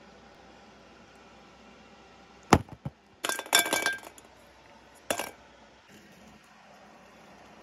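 Hard clinks against a ceramic ginger jar as it and the ornaments around it are handled: a sharp knock, a quick run of clinks with a brief ring, then one more knock.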